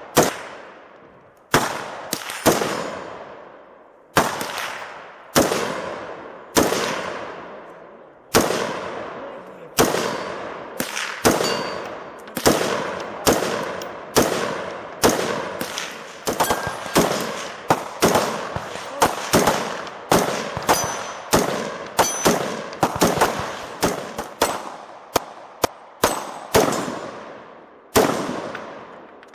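A long string of gunshots, each trailing a ringing echo that dies away over about a second. The shots come about a second apart at first, crowd together and overlap through the middle, and slow again near the end.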